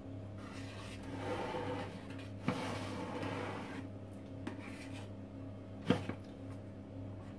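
Metal offset spatula smoothing thick cheesecake batter in a springform pan: soft scraping and rubbing, with two light knocks of the baking tray being shifted on the counter, one midway through and one near the end.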